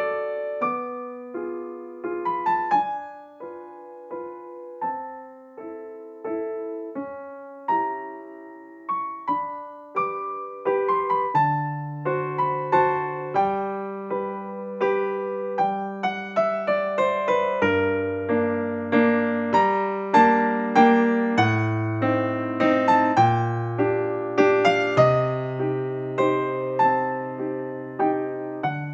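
Background piano music: a gentle melody of struck notes, joined by a bass line and fuller chords about eleven seconds in.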